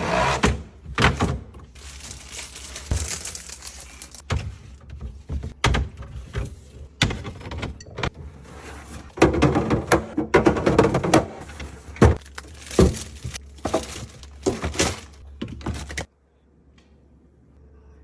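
Sauce bottles and jars being handled and set down on refrigerator shelves: irregular knocks, clinks and clatter. It cuts off suddenly near the end, leaving a faint steady hum.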